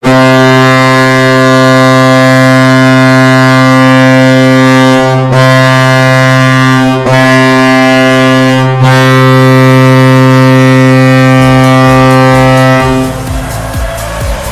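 Colorado Avalanche arena goal horn: a very loud, low, steady blast with rich overtones, broken three times by brief gaps. About thirteen seconds in the horn stops and quieter music with a regular beat takes over.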